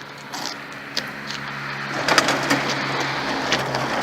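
An object scraping across a truck's sheet metal, a rough grating scrape with clicks that gets louder about halfway through, over a steady low hum.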